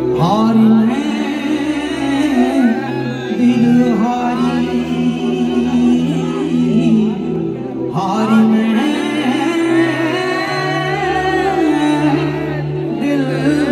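A live band playing amplified music, with a singer's voice over steady bass notes.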